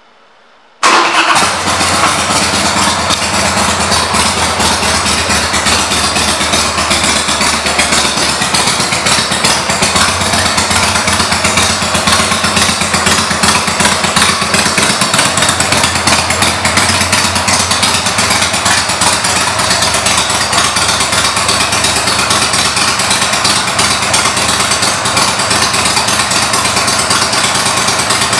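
Harley-Davidson Sportster 1200's air-cooled V-twin engine, fitted with Screamin' Eagle aftermarket exhaust pipes, starting up about a second in and then idling steadily.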